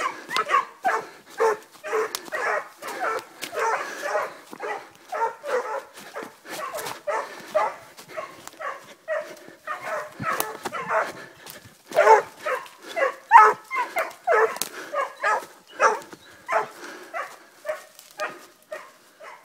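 Hunting dogs giving tongue: a string of barks, about two to three a second, that runs on without a break and peaks in the middle. This is the baying of hounds working the scent of a hare.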